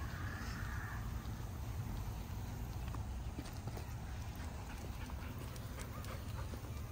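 Footsteps of a person and a dog walking on a paved path: faint light clicks and scuffs, more frequent after about three seconds, over a steady low rumble.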